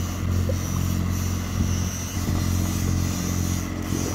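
Charter fishing boat's engine running at a steady low drone, with a thin high whine over it.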